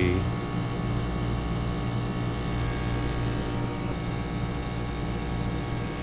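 ClimateMaster geothermal heat pump running in heating mode: a steady, unchanging mechanical hum of several low tones.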